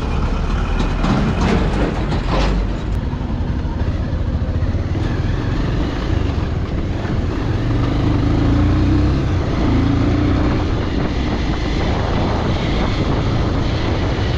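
Motorcycle engine running while the bike is ridden over a rough, rocky dirt road, with a few knocks in the first couple of seconds. The engine note rises a little around the middle.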